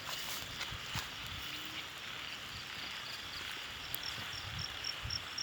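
Insects chirping outdoors: a steady high background buzz, joined about four seconds in by a regular high-pitched chirp pulsing about three times a second.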